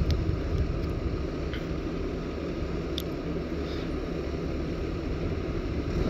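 Diesel engines of heavy earthmoving machinery, a dump truck among them, running steadily: a constant low rumble with a light hiss over it.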